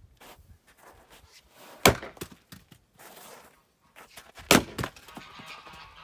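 An axe chopping into firewood rounds on a chopping block: two sharp chops about two and a half seconds apart.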